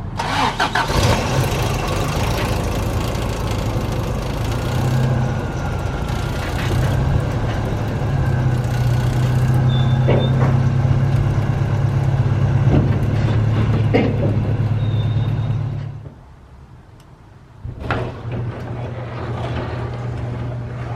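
Four-cylinder engine of a 1985 Toyota 4Runner running steadily. It cuts out for a second or two about sixteen seconds in, then runs again.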